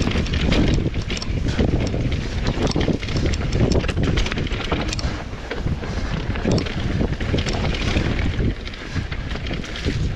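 Mountain bike riding fast down a dirt trail, with wind rushing over the action-camera microphone and frequent clicks and knocks from the bike over rough ground.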